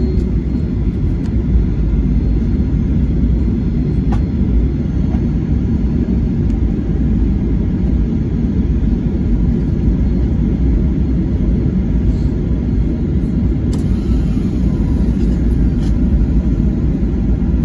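Steady low rumble inside the cabin of a Boeing 737-800 taxiing on the ground, from its CFM56 engines at taxi power and the wheels rolling over the taxiway.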